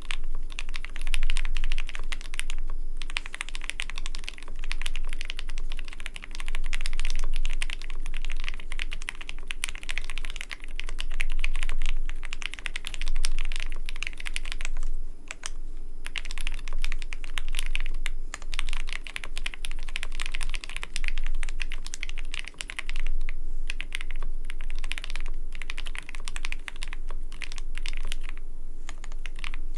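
Continuous typing on a custom mechanical keyboard, with a creamy keystroke sound. It is a dense, fast run of key presses broken by a few brief pauses.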